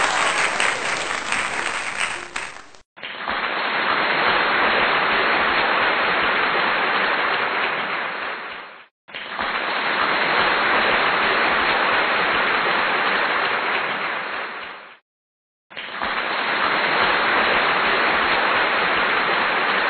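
Canned crowd applause, played as a sound effect over and over. A first run cuts off about three seconds in. Then come three more runs of about six seconds each, each fading out into a brief silence before the next begins.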